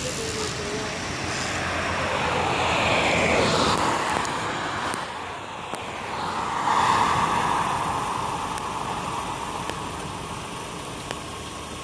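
Road traffic passing close by: two vehicles go past, the tyre and engine noise swelling and fading, the first about three seconds in and the second about seven seconds in.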